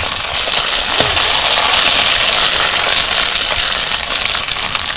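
Puri dough balls deep-frying in hot oil in an iron wok: a loud steady sizzle with fine crackling, swelling toward the middle. There are two light knocks, one at the start and one about a second in.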